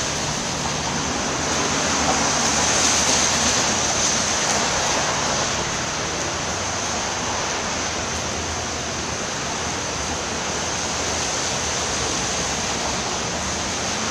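Steady rushing noise, like running water or surf, swelling slightly a few seconds in.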